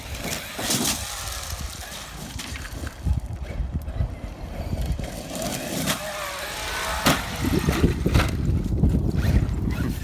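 Traxxas X-Maxx electric RC monster truck tearing over dirt and gravel: its brushless motor whining up and down with the throttle over a steady rumble of tyres on loose ground. There are sharp knocks of the truck landing and bouncing, the sharpest about seven seconds in, just after it is airborne off a gravel pile.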